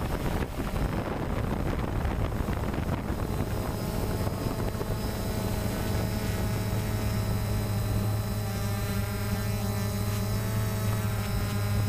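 DJI Phantom quadcopter's electric motors and propellers humming steadily in flight, picked up by its on-board camera with wind rushing over the microphone. The hum's steady pitch comes through more clearly from about four seconds in as the wind noise eases.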